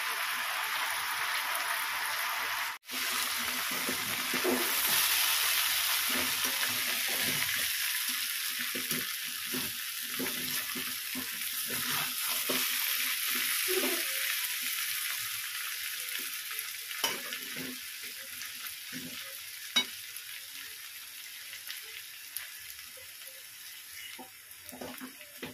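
Thin-cut potatoes sizzling in mustard oil in a heavy-bottomed kadhai, with a metal spatula scraping and knocking against the pan as they are stirred. The sizzle dies down toward the end.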